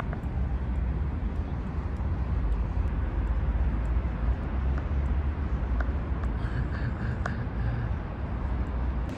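Outdoor city background: a steady low rumble, with a few faint clicks scattered through it.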